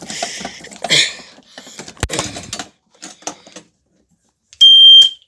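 Handling clicks and rustling, with one sharp snap about two seconds in. Near the end a fire alarm horn goes off for about half a second with a loud, steady, high-pitched tone, then stops.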